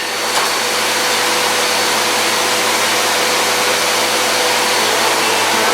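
Dirt Devil upright vacuum cleaner running: a steady motor whine over a rush of air, unchanging throughout.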